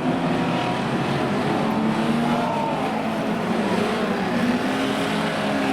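Several banger racing cars' engines running and revving together on the track, their pitch rising and falling.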